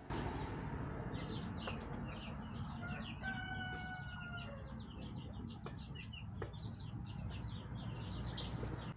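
A huddle of ducklings and goslings peeping continuously in short, high chirps, with one longer steady call held for about a second a little past three seconds in, over a low background rumble.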